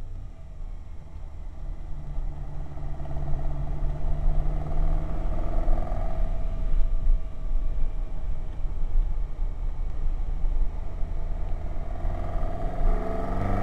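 Ferrari 308 GTB's V8 engine heard from inside the car on track, with road and tyre rumble underneath. It starts quieter, just after lifting off, then builds steadily over the first several seconds as the car accelerates, and holds at a steady pull.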